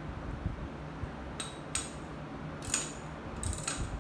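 Several sharp metallic clinks from a bungee cord's metal hooks knocking against the motorcycle's chrome mirror and handlebar as the cord is hooked on, starting about a second and a half in and coming closer together near the end.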